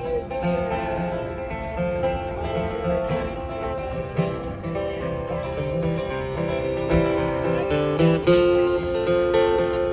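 Acoustic guitar music, strummed in a country or bluegrass style with a steady beat, without singing.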